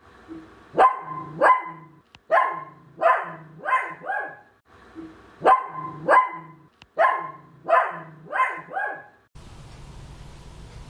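Poodle barking: two runs of about six sharp, high-pitched barks, the runs nearly alike. From about nine and a half seconds in, only a steady hiss remains.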